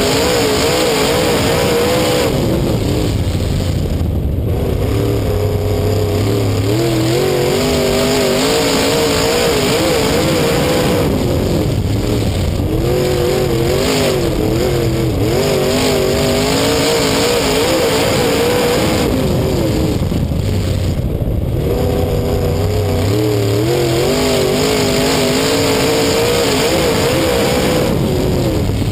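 Race car engine heard from inside the car while racing, loud and steady with wind and track noise over it. The engine pitch climbs down the straights and falls off when the driver lifts for the turns, in a cycle of about eight seconds as the car laps.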